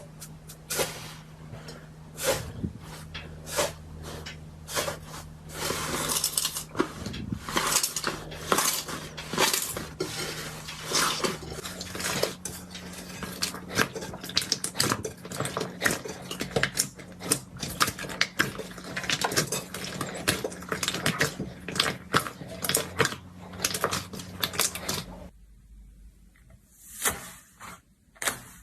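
Slime squeezed and kneaded by hand, making a dense run of sticky clicks and crackling pops that stops about 25 seconds in, with a few clicks after.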